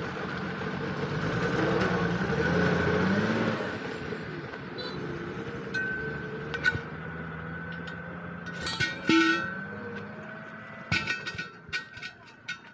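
A vehicle engine running close by, swelling about two to three seconds in and then fading. After it come a scatter of sharp knocks and thuds as a heavy truck tyre on its steel rim is rolled and set down on the dirt.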